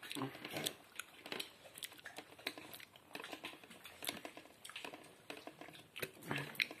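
Eating by hand: irregular soft clicks and smacks from a child chewing and from fingers working rice and curry on a plate.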